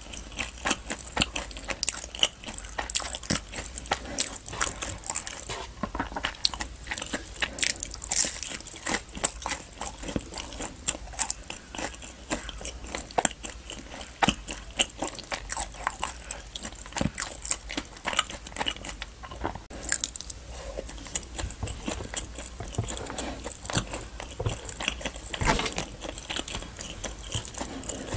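Close-miked chewing of food: a dense, irregular stream of wet mouth clicks and smacks.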